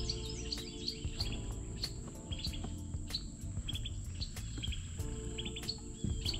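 Insects singing steadily in a high, even tone with fast regular pulses, while a bird gives short chirps over and over.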